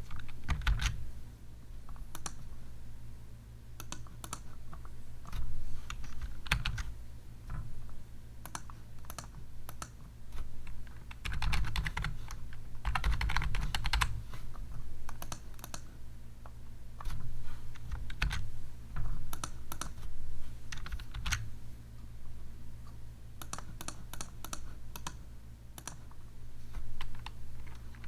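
Typing on a computer keyboard: keystrokes in irregular bursts, with a long fast run about halfway through.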